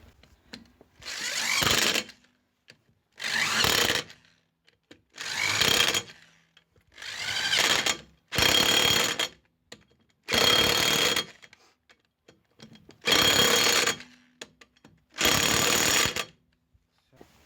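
Impact wrench with a 17 mm socket driving wheel bolts home in eight bursts of about a second each, with short pauses between them.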